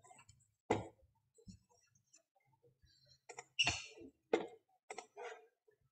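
A handful of separate short clicks and light knocks, spread unevenly over several seconds, with a small cluster a little past the middle.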